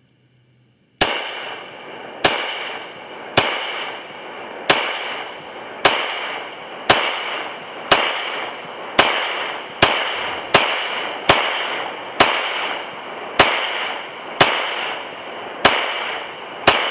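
Ruger P95 9mm pistol fired sixteen times in steady succession, about one shot a second, starting about a second in. Each shot is a sharp crack followed by a long echo that dies away before the next.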